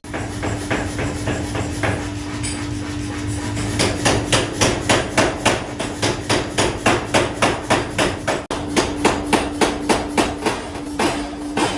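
Hammer blows on hot metal as a rod is forged: lighter, spaced strikes at first, then a fast even run of about three blows a second. A steady machine hum runs underneath.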